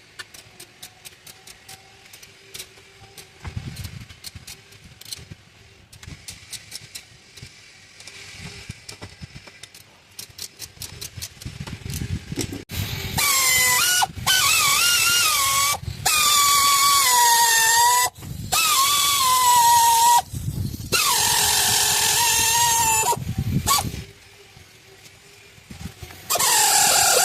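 A power tool whining in several bursts of two to three seconds each, its pitch wavering as the speed changes while it runs bolts during the water pump job. Light, rapid clicking comes before the bursts.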